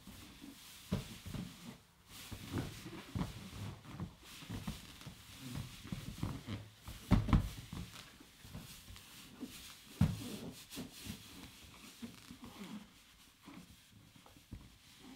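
Partly inflated 24-inch latex balloon handled in furry fursuit paws, giving irregular low rubbing and bumping sounds, with louder bumps about seven and ten seconds in.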